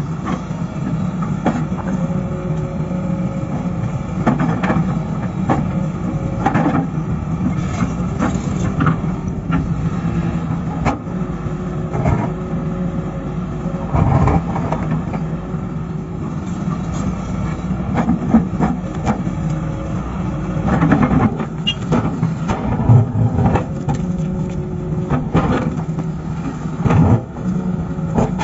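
Hydraulic excavator's engine running steadily under load, with repeated knocks and scraping as the bucket works against rock.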